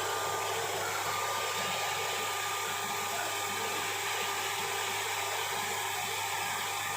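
Electric rice huller driven by a 4 HP electric motor, running steadily: an even rushing noise over a low hum.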